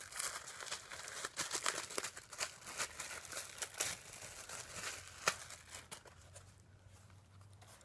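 Packaging crinkling and rustling in quick, irregular handfuls, with small clicks and taps, as items are pulled out and handled; it dies down for the last second or two.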